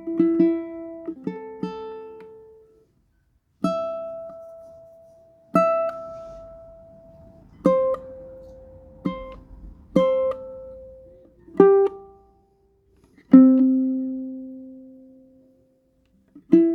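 Tenor ukulele played slowly: about a dozen single chords or notes are plucked one at a time, each left to ring and fade before the next, with a longer ringing chord a little after halfway through.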